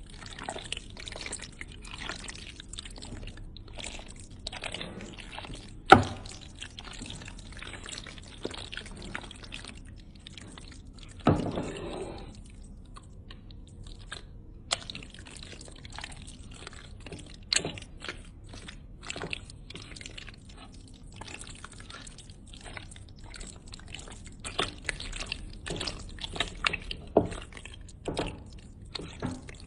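Wet, sticky squelching and small clicks of a creamy salad with jelly cubes being stirred, with a few sharper knocks, the loudest about six seconds in.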